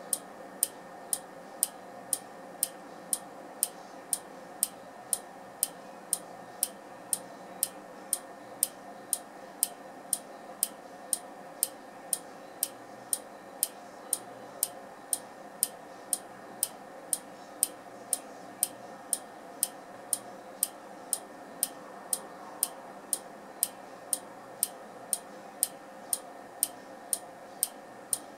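Z700U trigger-tube neon clock ticking with sharp, evenly spaced clicks, about two a second, over a steady faint hum.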